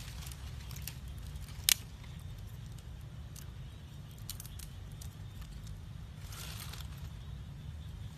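Dry palm fronds crackling and snapping as they are handled, with one sharp, loud snap a little under two seconds in. A steady low rumble runs underneath.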